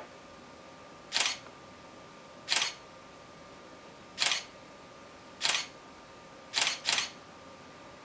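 Canon Rebel T1i DSLR shutter firing six times at uneven intervals of one to two seconds, each a short sharp click; the last two come in quick succession.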